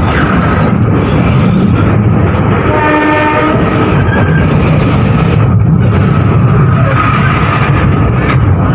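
Train running with a steady, loud rumble; its horn sounds one short blast about three seconds in.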